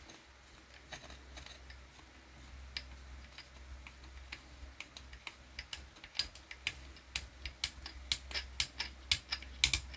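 Light, irregular clicks of a hex driver being turned by hand, driving a small machine screw into the shock-tower brace of an RC car chassis. The clicks are sparse at first and come faster, about two to three a second, in the second half.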